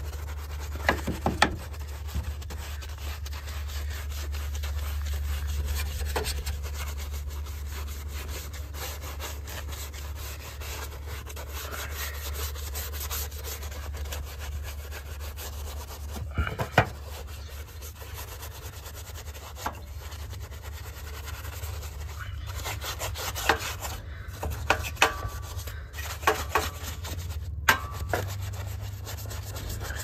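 A soft detailing brush scrubbing foamy condenser cleaner over the sheet-metal base pan and coil fins of an air conditioner's outdoor unit, a steady scratchy rubbing. A few sharp knocks break in, a couple about a second in, one midway and a cluster near the end.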